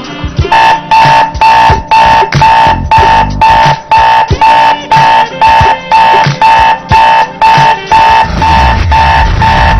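Electronic alarm beeping loudly in an even, fast pattern of nearly three beeps a second. A low engine-like rumble comes in near the end.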